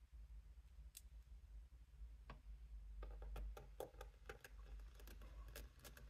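Faint clicks and ticks of a precision screwdriver turning a small Phillips screw that secures a laptop's M.2 SSD. A few isolated clicks come first, then quicker ticking through the second half.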